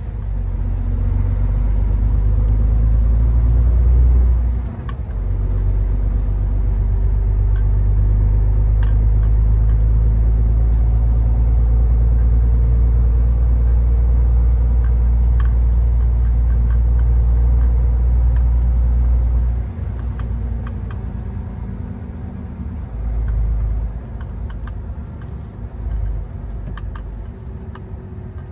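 Truck engine running with a low, steady rumble, with a brief dip about five seconds in. About twenty seconds in the rumble drops to a quieter, uneven level, as the engine comes off load.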